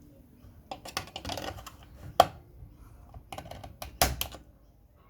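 Irregular clicking and knocking of a washing machine door latch mechanism and its spring being worked by hand to release the spring, with a sharp click about two seconds in and a louder knock about four seconds in.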